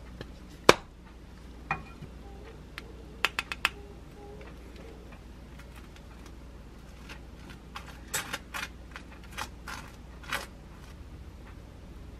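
Kitchen handling sounds of sandwich-making: sharp clicks and taps of a utensil, one loud one about a second in and four quick ones around three and a half seconds, then a run of short scraping strokes of a knife spreading whole-grain mustard on a slice of bread.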